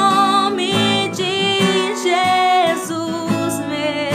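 A woman singing a worship song in long, wavering held notes over a strummed acoustic guitar.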